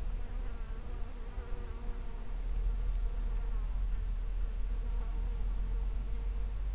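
A flying insect buzzing steadily close by, its pitch wavering a little, over a low rumble.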